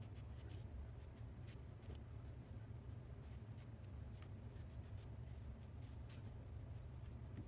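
Graphite pencil scratching on paper in many short, irregular strokes, faint, as depth lines are drawn, over a low steady hum.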